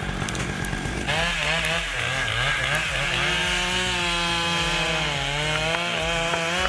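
Chainsaw running at full throttle in a cut through a Jeffrey pine. The engine comes in about a second in, and its pitch wavers up and down as it bogs and recovers under load.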